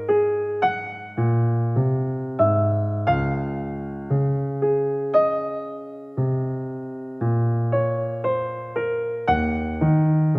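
Background music: a gentle piano melody, single notes struck one after another, each fading before the next.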